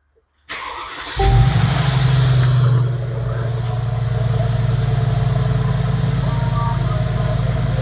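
Mercedes-AMG G63's twin-turbo 4.0-litre V8 being started: a brief starter crank, the engine catching about a second in with a loud flare of revs, then settling to a steady idle.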